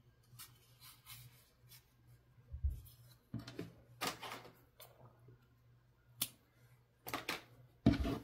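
Quiet handling noises as yarn is drawn through crochet fabric with a tapestry needle: scattered rustles and a few light clicks and taps. The loudest is a dull thump near the end.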